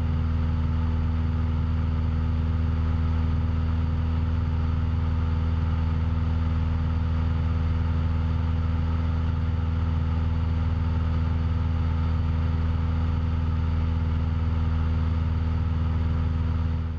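Cessna 172's piston engine and propeller running steadily in flight: a loud, deep, constant-pitched hum.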